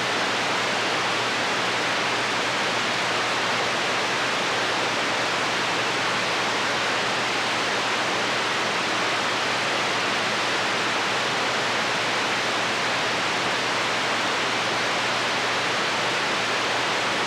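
Steady hiss of an open-squelch CB radio receiver on channel 6 with no station transmitting, an even rushing static with a faint low hum underneath.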